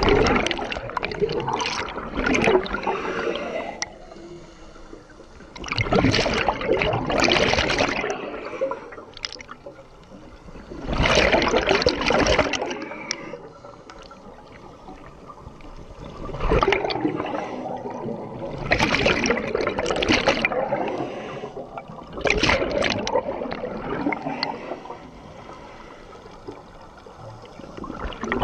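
Scuba exhalation bubbles gurgling out of an Aqualung Titan regulator underwater in regular bursts of two to four seconds, about every five to six seconds, with quieter stretches between breaths.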